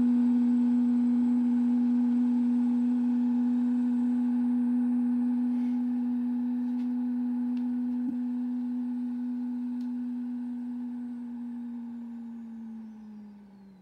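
An organ pipe blown by the air of a deflating balloon, sounding one steady note that slowly fades. Near the end the note sags in pitch and dies away as the balloon runs out of air.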